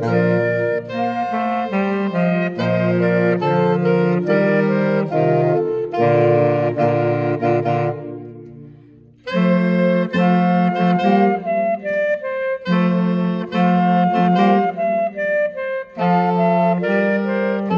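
A saxophone quartet, a baritone saxophone with smaller saxophones, playing a piece together in chords. About eight seconds in the sound dies away into a brief pause, then all four come back in together and play on.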